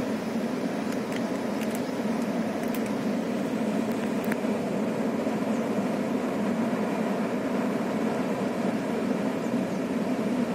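Floodwater pouring from open crest gates and rushing down a concrete dam spillway: a steady, low rushing noise that doesn't let up.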